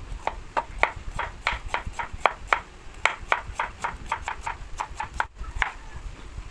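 Knife slicing peeled white radish into thin rounds on a bamboo cutting board: a steady run of sharp cuts, about three or four a second, which stop near the end.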